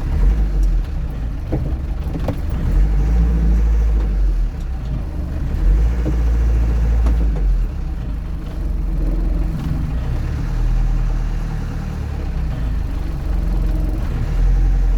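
Land Rover Series 3 on the move, its engine and drivetrain a loud low rumble that swells and eases, with a couple of brief knocks about a second and a half and two seconds in.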